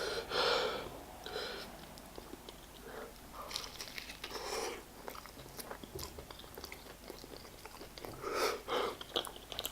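Close-miked chewing of a fried chicken burger, with a run of short noisy puffs between bites, as the eater breathes hard against the heat of the hot sauce.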